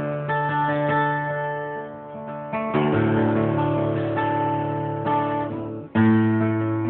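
Bob Thompson D-18 dreadnought acoustic guitar, with a baked red spruce top and mahogany back and sides, played solo: picked melody notes over ringing bass notes. There is a change of chord a little under three seconds in, and a loud new chord struck after a brief drop about six seconds in.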